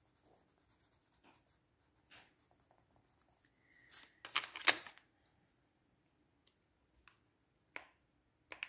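Derwent Graphitint colour pencil scratching lightly on sketchbook paper as a swatch is shaded in. About four seconds in there is a louder, brief scrape or clatter, and a few light taps follow near the end.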